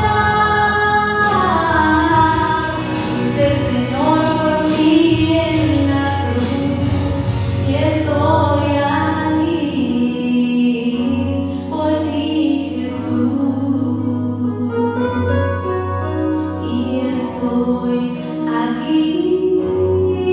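A woman sings a slow Spanish-language Christian worship song into a microphone over instrumental accompaniment.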